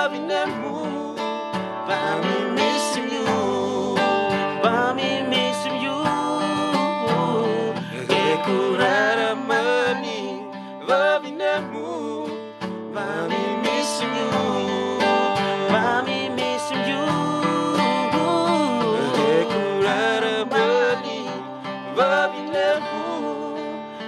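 Acoustic guitar strummed and picked, with a hand-played cajón keeping the beat and a man singing at a microphone: an unplugged acoustic song.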